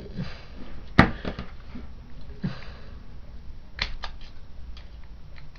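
Handling noise from a small digital camera being worked at by hand: scattered plastic clicks and taps, a sharp click about a second in and a quick run of clicks near four seconds.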